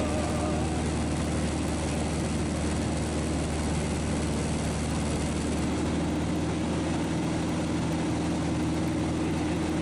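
Single-engine propeller airplane in cruise flight, heard from inside the cockpit: a steady, even drone of the engine and propeller with air noise, holding the same pitch and loudness throughout.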